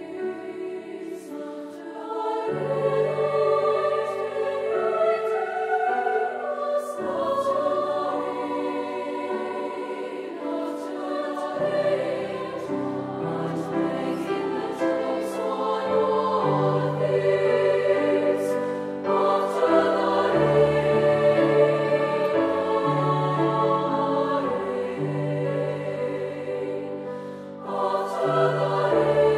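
Treble choir singing a slow piece in sustained chords, accompanied by grand piano, with a short pause between phrases near the end.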